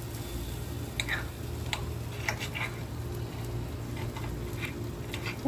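Burger patties cooking on a charcoal grill: scattered pops and crackles of fat every second or so, over a steady low hum.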